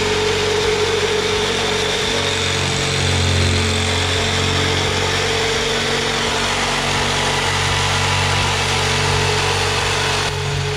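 Corded jigsaw running steadily as it cuts through a sheet of plywood, with a steady motor whine under the rasp of the blade. The sound eases slightly at about ten seconds.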